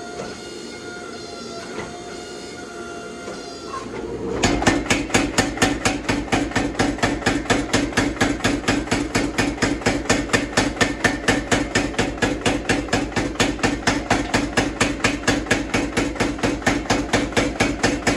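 A power hammer pounds a hot layered Damascus steel billet in a rapid, even run of blows, about four a second, forge-welding the stack of layers into one piece. For the first four seconds, before the blows begin, only the forge's steady running is heard.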